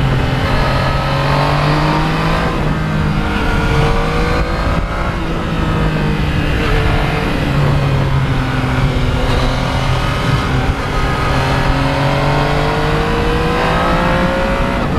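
Yamaha MT-09's inline three-cylinder engine running under way, its pitch dipping early on and then climbing steadily through the second half as the bike accelerates.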